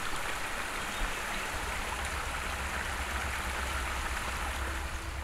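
Small rocky forest stream running, a steady rush of water tumbling over stones. A low steady hum joins about a second and a half in.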